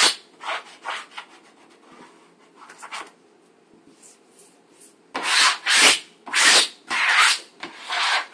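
A sponge rubbed firmly over freshly hung wallpaper to wipe it clean: a few scattered wipes at first, then a quick run of about five firm back-and-forth strokes in the last three seconds.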